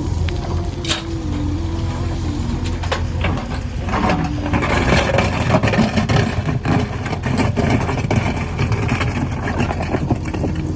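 Backhoe loader's diesel engine running steadily, with repeated knocks and clatter that grow denser from about four seconds in.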